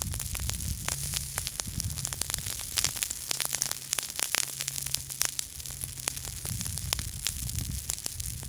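Small campfire crackling: irregular sharp pops and snaps over a steady hiss.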